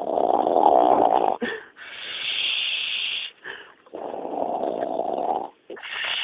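Loud, exaggerated fake snoring by a person imitating a heavy snorer: two long rattling snores, each followed by a long breathy hiss.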